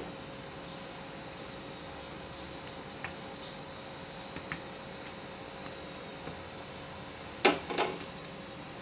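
Steady hiss of a gas stove burner turned up high, with a corn cob being roasted over the flame. Faint high chirps come and go, and a brief clatter sounds about seven and a half seconds in.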